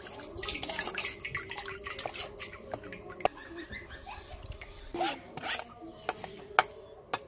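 Herb-and-spice liquid dripping through a steel mesh sieve into a steel bowl while a metal spoon scrapes and presses the wet paste against the mesh, giving scattered drips, clinks and rubbing strokes.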